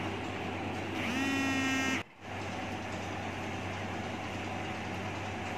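A horn-like tone, one steady pitch, sounds for about a second, then the sound drops out abruptly and a steady low hum carries on.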